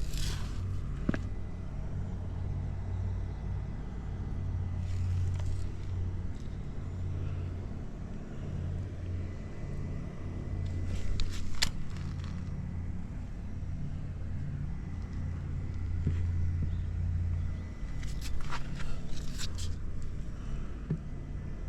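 Suzuki GS50's small single-cylinder four-stroke engine running steadily, with a few brief clicks along the way. It is quiet, with no abnormal engine noise.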